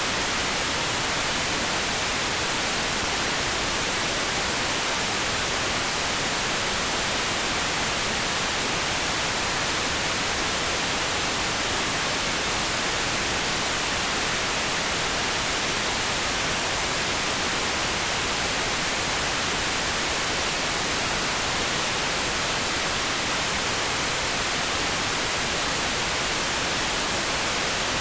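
Steady, unchanging synthesized noise played as a pink-noise sleep track: a continuous even hiss with no variation, heavier in the high end.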